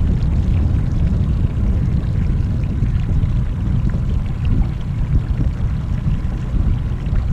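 Steady low rumble and wash of a small aluminum fishing boat moving slowly while trolling.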